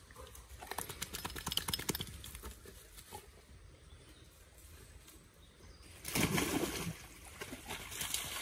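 A dog pushing through woodland undergrowth, with crackling rustles and twig snaps in the first couple of seconds, then a louder rush of noise about six seconds in and splashing as it wades into a stream near the end.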